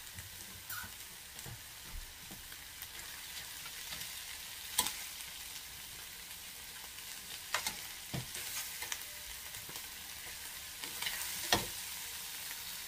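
Ground beef and onions sizzling in a stainless steel skillet, with a metal spatula clacking against the pan now and then as the mixture is stirred.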